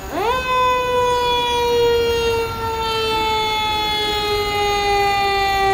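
Fire pumper truck's siren winding up. The pitch climbs quickly right at the start, then falls slowly and steadily in one long wail.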